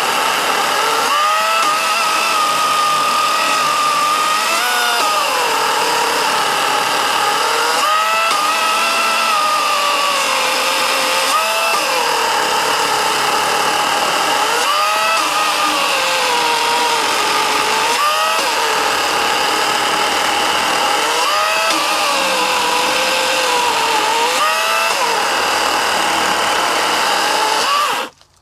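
Wild Badger Power 40-volt cordless electric chainsaw cutting round after round through a log. The motor's whine sags in pitch as the chain bogs under load in each cut and climbs back as it runs free, a pattern typical of a small battery saw that can be stalled if pushed hard. The saw stops abruptly at the end.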